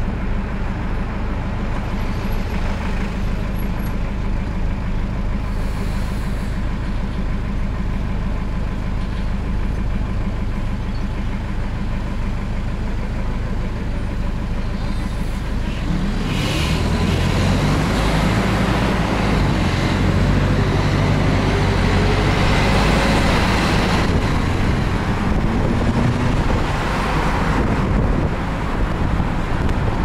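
Bus engine heard from inside the cabin, running with a steady low hum, then pulling harder about halfway in, its pitch rising as the bus speeds up, with road noise growing.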